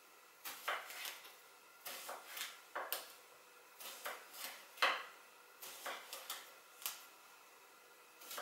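Kitchen knife chopping aubergine on a wooden cutting board: a string of sharp, irregular knocks as the blade meets the board.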